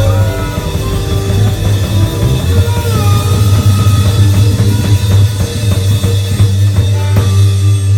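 Live country-rock band playing an instrumental passage without singing: drum kit, electric bass and guitar, with a sustained note that slides in pitch about three seconds in. Drum hits grow sharper near the end.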